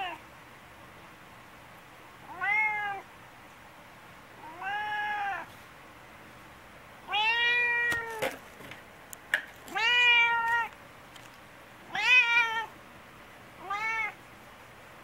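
Brown tabby cat meowing loudly over and over: the talkative, attention-seeking meows of a spoilt cat. There are six drawn-out meows about two seconds apart, each rising and then falling in pitch, and the longest lasts about a second in the middle. A few faint knocks come just after the middle.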